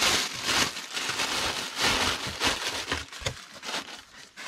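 Green plastic packing wrap crinkling and rustling as it is stuffed around an item in a cardboard box, with the box being handled. The rustling is busiest over the first three seconds and thins out near the end.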